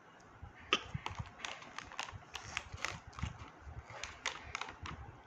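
Plastic snack packet crinkling and rustling as small hands dig into it for popcorn: faint, irregular crackles.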